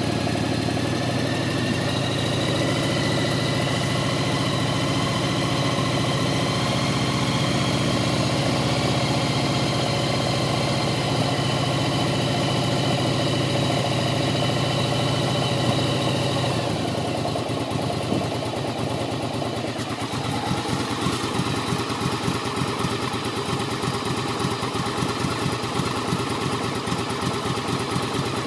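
Yamaha Virago 1100's air-cooled V-twin engine idling after a start, with the knocking sound this bike has. Past the middle its speed falls over a few seconds to a lower, lumpier idle where each beat stands out.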